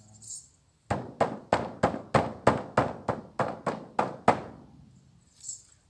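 Large hide-headed frame drum struck with a beater: about a dozen even beats at roughly three a second, starting about a second in. The last beat is left to ring out.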